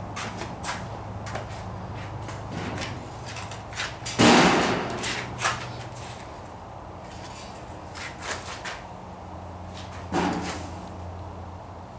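Handling knocks: a loud thump about four seconds in, a smaller one about ten seconds in, and scattered light clicks and taps, over a steady low hum.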